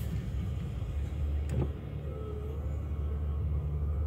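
Steady low rumble of a motor vehicle engine, with a faint click about one and a half seconds in.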